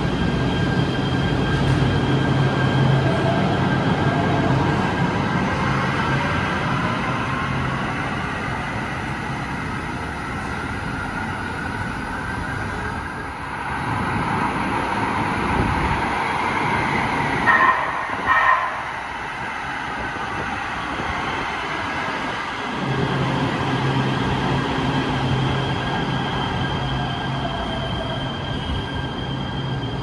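LA Metro light rail trains in an underground station: the steady rumble and hum of the cars, with a motor whine that glides in pitch as a train moves. A little past halfway come two short, loud high tones in quick succession.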